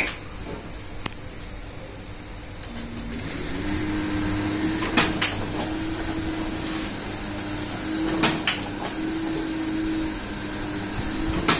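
Sakurai SC-72A cylinder screen printing machine running: a steady motor hum with a held tone comes up about three seconds in, and from about five seconds in pairs of sharp mechanical clacks come roughly every three seconds as the press cycles.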